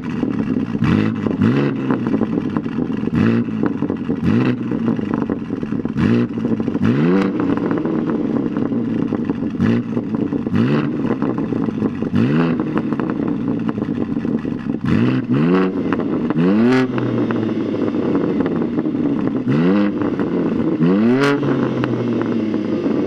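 BMW M3 G80's S58 twin-turbo inline-six, with its OPF and mid silencer removed and replaced by an H-pipe, revved in a string of short throttle blips. Each blip rises quickly in pitch and falls back to idle, about one every second or so, sometimes two close together, each with a sharp crack at the start.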